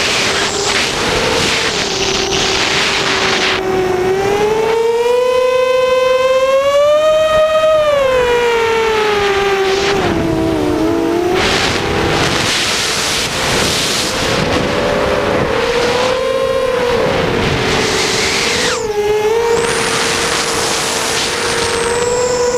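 Brushless motors and 6x4.5-inch props of a mini FPV quadcopter, heard from its onboard camera: a loud whine whose pitch rises and falls with the throttle. It is laid over heavy rushing air noise, and the whine climbs to its highest about seven seconds in, then drops and wavers.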